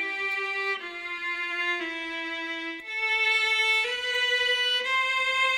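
Violin playing a slow melody of long held notes, one note at a time, changing pitch about once a second.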